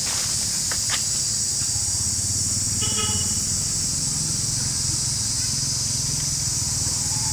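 Steady high-pitched drone of an insect chorus in the trees, over a low steady hum. A brief pitched chirp about three seconds in.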